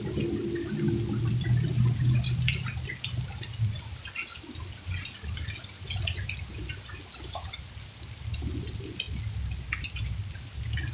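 Storm water pouring and running off in a steady low rush, with many scattered sharp ticks of drops striking throughout. The rush is strongest in the first couple of seconds.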